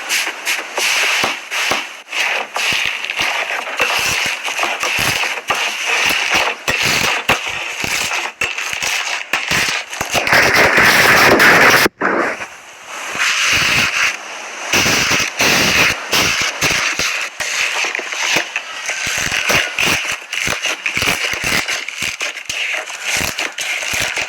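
Slime being squeezed and worked by hand, making dense, irregular crackling and popping. The sound breaks off for an instant about halfway through and then carries on.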